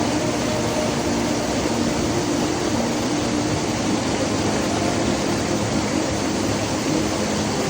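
Rushing water, steady and even.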